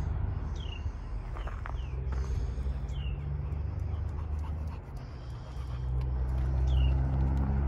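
A boxer dog panting over a steady low hum. A few short bird chirps, each sliding downward, come in now and then.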